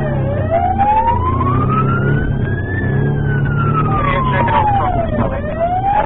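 Police siren on a slow wail, making one full rise and fall over about five seconds and starting to climb again near the end, over the steady drone of the police car's engine.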